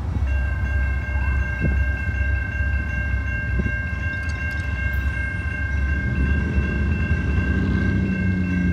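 Railroad crossing warning bell starting to ring just after the start and ringing steadily over a low rumble. From about six seconds in, an approaching train grows louder beneath it.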